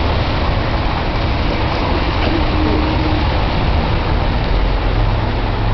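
Steady cabin noise of a car driving slowly on a snowy street: low engine hum and tyres running over packed snow and slush.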